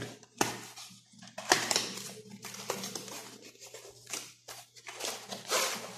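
Small cardboard gift box being handled and worked open by hand: an irregular scraping and rustling of card, with a few sharp taps and clicks as the box is turned and the lid is pried loose.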